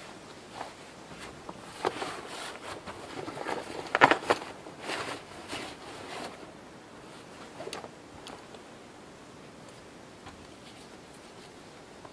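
A backpack and clothing rustling as the pack is swung onto the shoulders and its straps adjusted, with sharp clicks and scrapes, loudest about four seconds in. It goes quiet after about eight seconds.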